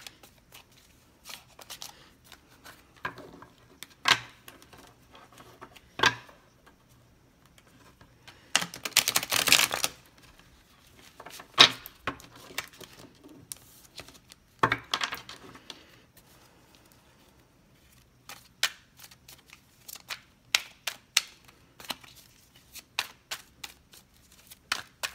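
A deck of tarot cards being shuffled by hand: irregular slaps and clicks of cards, with a longer rustling run of cards about nine seconds in and quick clicking toward the end.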